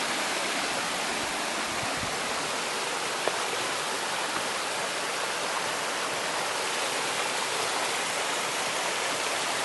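Steady rushing of running water, an even hiss without change, with one brief tick about three seconds in.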